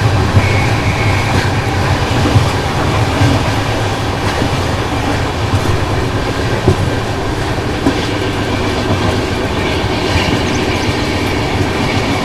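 A moving passenger train heard from inside the lower deck of a double-decker chair car: the wheels run on the rails with a steady rumble, and a few sharp clicks come over the rail joints.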